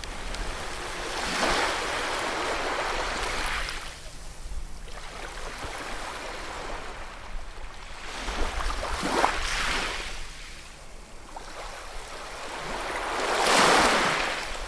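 Ocean waves breaking and washing up on the shore in three slow surges, the loudest near the end.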